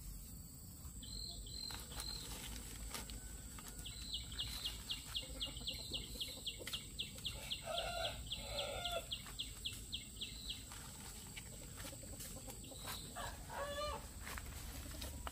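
Chickens calling: a run of short, high, evenly repeated peeps at about three a second for some six seconds, with a few lower clucks in the middle and near the end.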